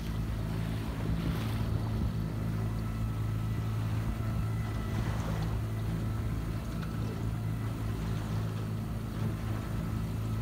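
Boat's outboard motor running steadily at low trolling speed, a constant low hum, with wind and water noise over it.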